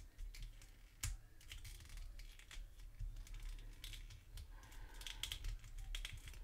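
Small plastic clicks and scratches of a Playmates action figure being handled, its head piece and joints worked with the fingers, with one sharper click about a second in.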